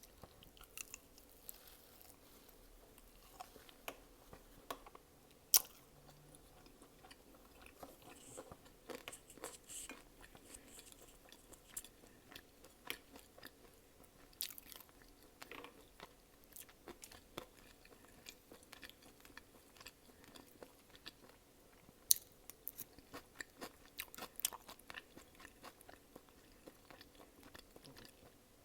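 A person chewing and biting food close to the microphone: many soft, irregular mouth clicks and crunches, with two sharper, louder clicks about five seconds in and about twenty-two seconds in.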